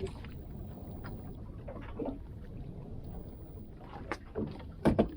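Steady low rumble of water and wind around a small boat at sea, with scattered light knocks and a sharp, louder double knock near the end.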